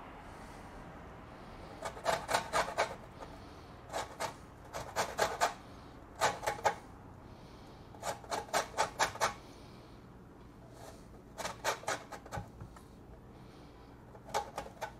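A lime being zested on a metal box grater, rasping off only the green outer peel: six bursts of quick scraping strokes, several strokes to each burst, with short pauses between.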